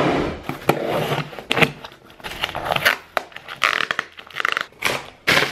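Cardboard shipping box being torn open by hand: packing tape ripping and cardboard flaps crunching and tearing in a series of short, irregular rips.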